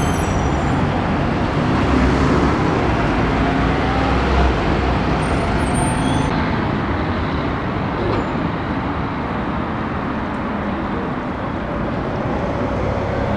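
City traffic: a bus's diesel engine runs close by with cars passing, a low rumble that is strongest for the first few seconds and then eases into general road noise. There are a couple of brief high squeaks, near the start and about six seconds in.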